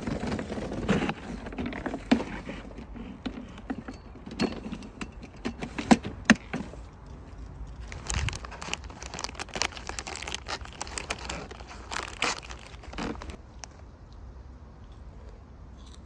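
Rustling and crinkling with scattered sharp clicks and knocks of objects being handled, in irregular bursts that die down near the end.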